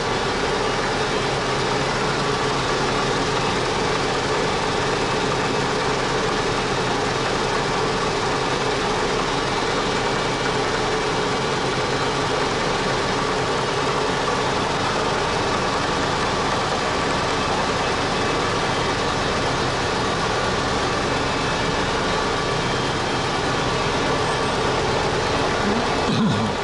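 Rotax engine of a homebuilt helicopter running steadily while it is being set up. Near the end its pitch rises briefly, as if the throttle is opened a little.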